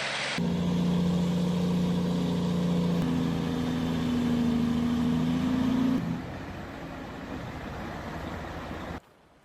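Heavy log truck's engine running under load, its pitch stepping up about three seconds in and rising slightly. It then gives way to a quieter, rougher running noise, and cuts off near the end.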